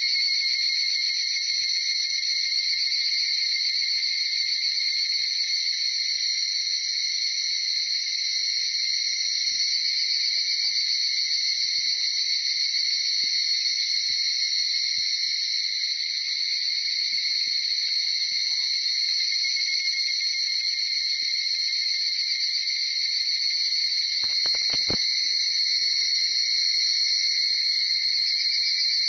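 Dense chorus of many higurashi cicadas (Tanna japonensis) calling at once, their trilling calls overlapping into a steady high-pitched wall of sound with no gaps.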